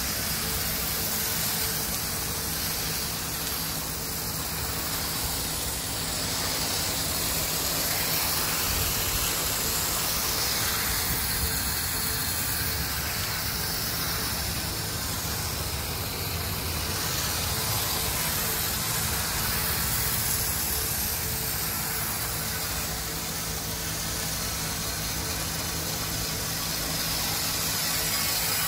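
Steady hiss of a water jet from a battery-powered sprayer spraying onto solar panels, with a steady low hum underneath.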